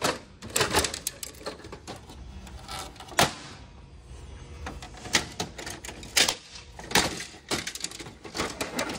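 Plastic covers and panels of an HP LaserJet 4200 laser printer being pulled off by hand: a run of irregular sharp plastic clicks and knocks with rustling handling noise between.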